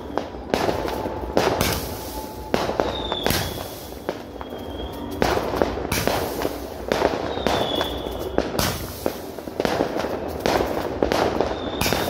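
Ground-launched fireworks going off in rapid succession: repeated hissing, crackling surges with sharp bangs. A short high whistle rises out of them about four times.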